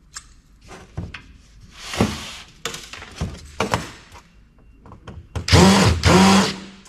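Scattered knocks and clatter of handling a metal computer case, then a cordless drill/driver running in two short bursts about five and a half seconds in.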